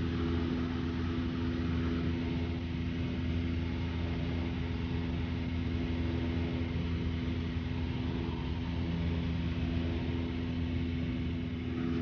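Small propeller plane's piston engine and propeller droning steadily in cruise, heard from inside the cabin: an even low hum with a constant pitch and a wash of noise over it.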